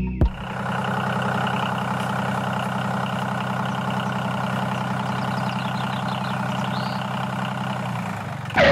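Tractor engine idling steadily, with an even, rapid low chug. It starts about half a second in and cuts off near the end.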